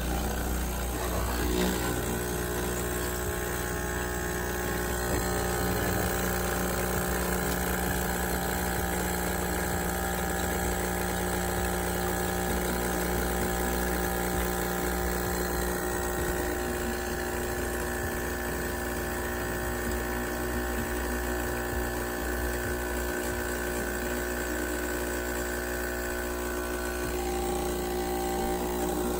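DeLonghi EC155 espresso machine's steam wand heating milk in a pitcher: a steady steam hiss with several held tones whose pitch shifts about halfway through and again near the end.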